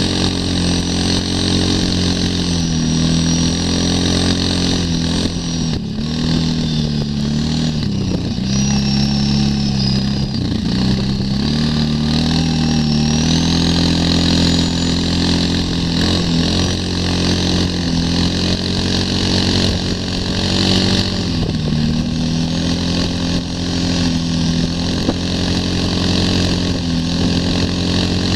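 ATV engine running under load while towing a skier, its revs rising and falling with the throttle and dipping briefly a few times.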